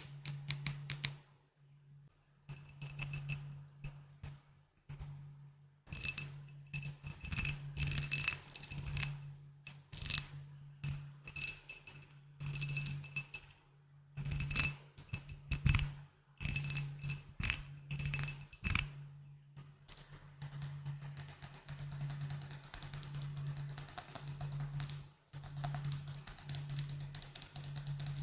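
Rapid tapping on glass bottles, some taps ringing with a clear high glassy tone. The taps come in quick runs near the start and in the last third, and in spaced clusters in between, over a steady low hum.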